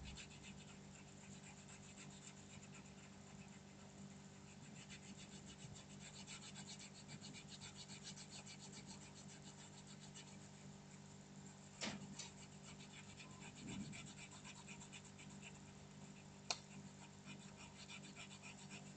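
A colouring pencil scratching quickly back and forth on card as an area is shaded in, faint and rapid. Two sharp clicks come about twelve seconds in and again near the end.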